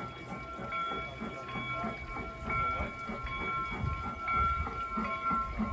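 Accucraft G-scale 0-6-0 model locomotive running with a coal train, giving a rhythmic chuff of about three beats a second, with a steady high tone held over it.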